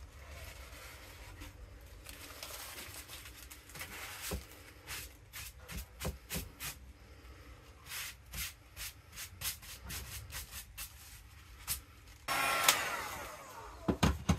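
Crumpled plastic wrap crinkling and rustling as it is dabbed and pressed onto wet spray paint on glossy paper. A run of short sharp taps comes in the middle, and a longer, denser rustle near the end closes with two sharp knocks.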